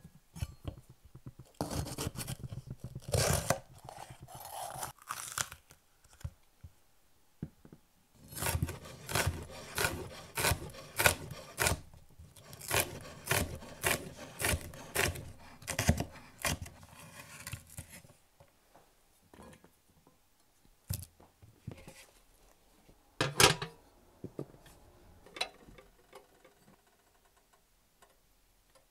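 Chef's knife chopping red bell pepper on a bamboo cutting board: a steady run of knife strikes, about two a second, through the middle, after scraping and handling sounds near the start. Near the end only a few single knocks.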